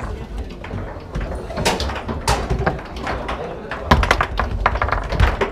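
Foosball in play: irregular sharp knocks and clacks of the ball struck by the plastic men and rods banging against the table, with a quick cluster of hits about four seconds in, over the murmur of a crowd talking.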